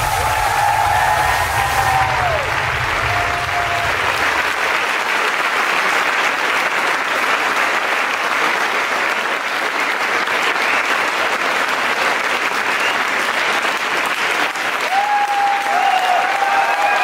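Audience applauding and cheering, with a few whoops near the start and near the end. For the first two seconds stage CO2 jets blast a loud hiss that cuts off sharply. The deep end of the music fades out about four seconds in.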